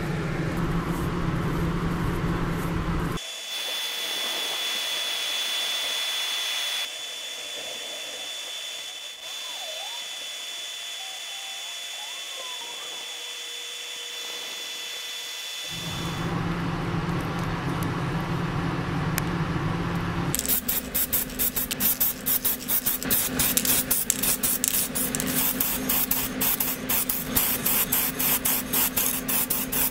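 Paint stripper fizzing as it foams and lifts old paint off a diecast model car body, a quiet hiss. This is set between stretches of a steady low machine hum. From about two-thirds through, the loud hiss of spray painting primer onto the body.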